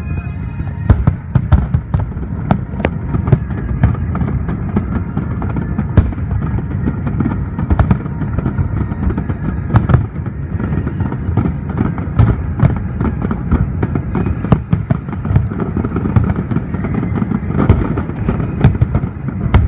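Large aerial fireworks display: a dense, unbroken run of booms and sharp cracks, several a second, over a continuous low rumble.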